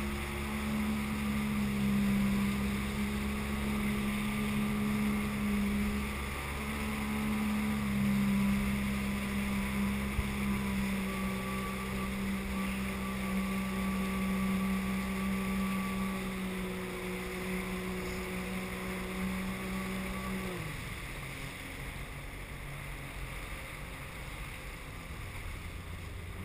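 Sea-Doo personal watercraft engine running at a steady speed over the rush of water. About twenty seconds in, the engine pitch drops sharply and it carries on slower and quieter.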